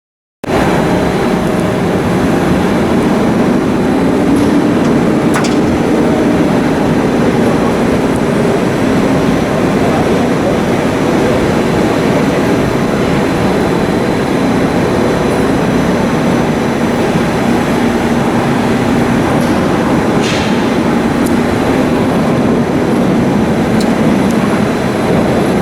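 Akasaka AX31R marine diesel main engine running steadily on the test bed, a loud even mechanical noise.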